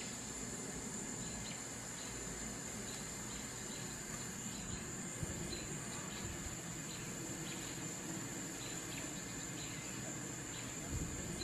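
Steady high-pitched drone of an insect chorus, with short high chirps repeating about twice a second over it.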